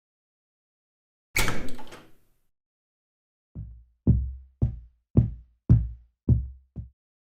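A short clatter, then seven dull, heavy footsteps on a wooden floor, about two a second.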